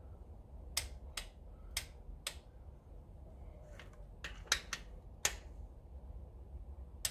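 Torque wrench clicking sharply and irregularly about ten times, in two clusters with a last click near the end, as it is worked on the bolts of a freshly refitted intake manifold.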